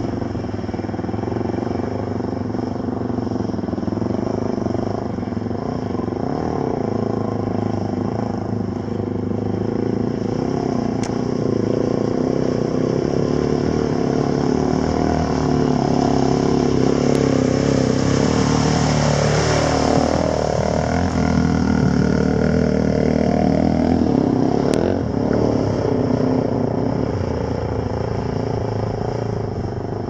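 Dirt bike engines running through a river crossing, one bike growing louder as it rides through the shallows toward the listener, its tyres throwing up a hiss of water spray. Its engine note dips and picks up again about two-thirds in.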